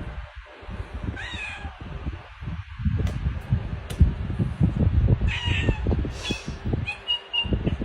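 A cat meowing several times in short calls, over loud low rumbling and bumping noise.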